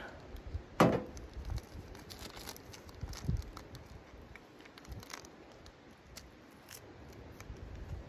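A ceramic mug set down on a steel camp stove top with one sharp knock about a second in, followed by a softer knock and scattered light clicks and rustling of handling.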